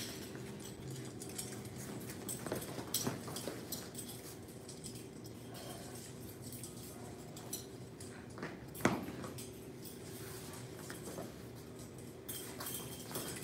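Scattered light clicks, taps and knocks from students practising with kung fu sabers, one sharper knock about nine seconds in, over a steady low hum.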